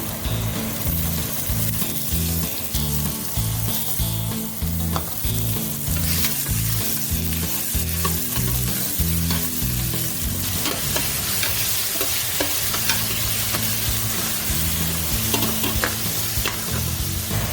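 Collard greens and aromatics sizzling in hot pork oil in a pan as they are stirred, with scattered clicks of the utensil against the pan.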